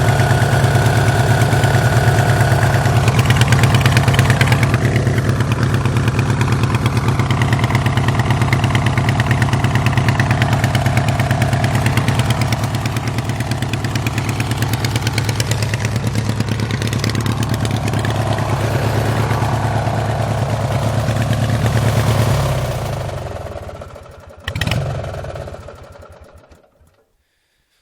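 16 HP Briggs & Stratton opposed-twin engine of a lawn tractor, fitted with dual exhaust, running at a steady idle. About 22 seconds in it is shut off and winds down, followed by a single short knock.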